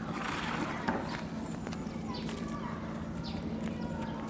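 Birds chirping a few short, falling notes over a steady low hum, with a brief burst of noise and a click in the first second.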